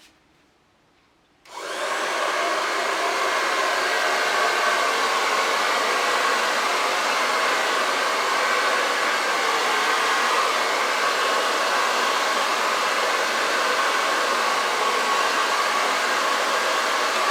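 Hair dryer switched on about a second and a half in, then running steadily on one setting, blowing air.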